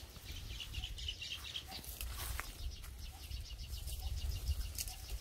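Leaves and twigs of a bush rustling and snapping lightly as leafy vegetables are picked by hand, over low wind rumble on the microphone.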